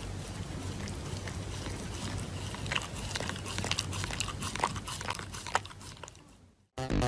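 A dog chewing, a run of irregular crunches and clicks over a steady low background, fading out near the end.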